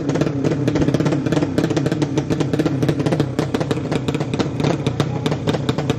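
200cc drag-racing motorcycle engine running loud and steady, with a rapid, irregular crackle of firing pulses and small rises and falls in pitch.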